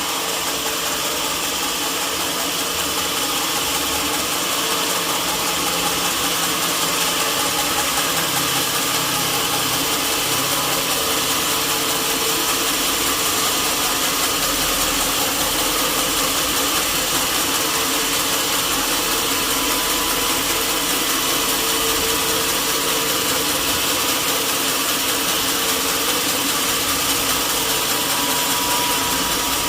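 Sawmill saw machinery running steadily: a loud, even mechanical noise with a steady hum underneath, growing slightly louder over the first few seconds.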